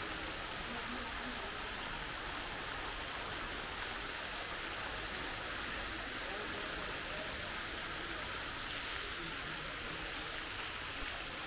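Fountain jets splashing steadily into a pool: a continuous watery hiss.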